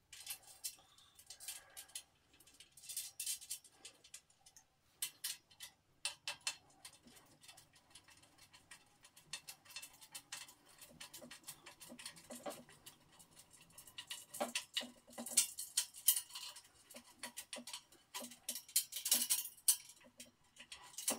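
Hex key and bolts clicking and scraping against a metal storage-rack frame as the bolts are tightened: irregular runs of small metallic clicks, busiest in the second half.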